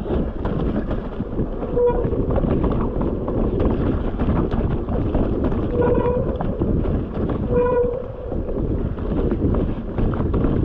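Steady rumbling noise like wind buffeting the microphone, with three short horn-like toots: about two seconds in, six seconds in, and just under eight seconds in.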